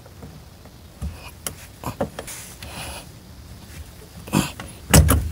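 A flat-blade screwdriver prying at a plastic fuel-line release clip on a fuel pump's tank cap: scattered clicks and scrapes of metal on plastic, with a few sharp knocks, the loudest near the end.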